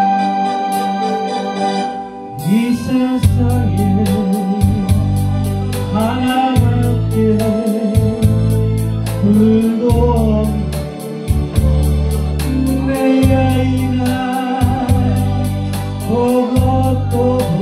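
Trot karaoke backing track: electronic organ over a sustained keyboard chord, then a steady drum-machine beat with ticking cymbals and deep bass that comes in about two seconds in. A man sings the melody live over it through a hand microphone.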